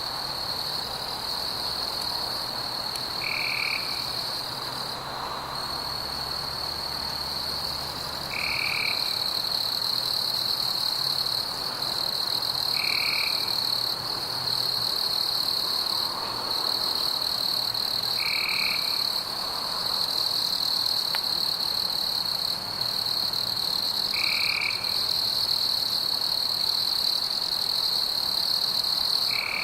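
Night chorus of frogs and insects: a steady high-pitched trill throughout, with a short call near 2.5 kHz repeating about every five seconds, six times.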